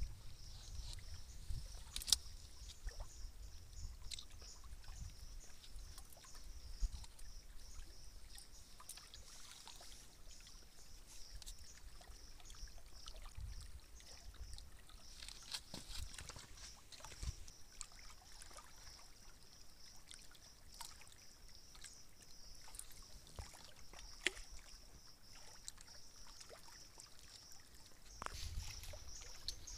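Faint waterside ambience: gentle water lapping against a rock shore, with a steady high hum and a low wind rumble, broken by a few small clicks and taps.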